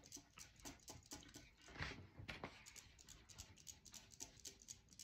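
Soft, uneven tapping and scraping of a paint-loaded piece of corrugated cardboard dabbed and scooped in small half circles over a wet chalk-paint coat, several faint taps a second.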